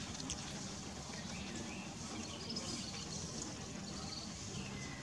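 Steady outdoor background noise with a few faint, short, high chirps about halfway through and near the end.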